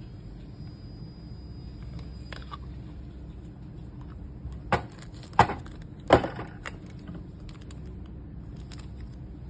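Three sharp knocks about two-thirds of a second apart, a little past the middle, over a steady low hum.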